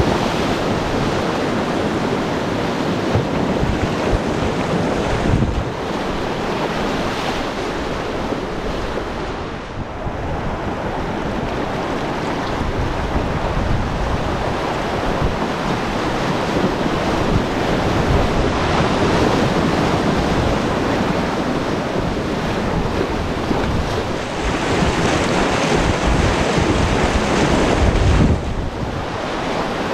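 Whitewater rapids rushing, with wind buffeting the microphone; the level shifts a few times, dipping briefly about ten seconds in.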